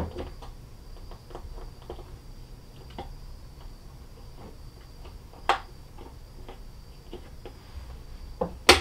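Small clicks and taps of wire leads being unhooked and reconnected at the terminals of a homemade 12 V power supply, as the leads to a car window motor are swapped to reverse it. A few sharper clicks come about halfway through and near the end, over a faint steady hum.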